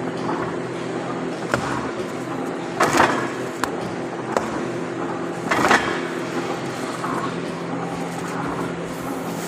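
An engine running at a steady idle, with two brief louder noisy bursts about three seconds in and near six seconds, and a few sharp clicks.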